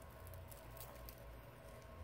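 Faint ticks and crackles of a cracked phone glass screen being peeled by hand off its adhesive and metal frame, over a faint steady hum.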